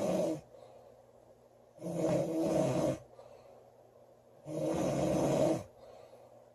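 A girl snoring loudly in her sleep: the tail of one snore, then two full snores about two and a half seconds apart, each lasting about a second.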